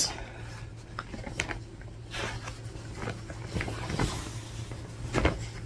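Faint rustling and soft flaps of a piece of quilting cotton being unfolded and shaken out, with a short louder rustle about five seconds in, over a low steady hum.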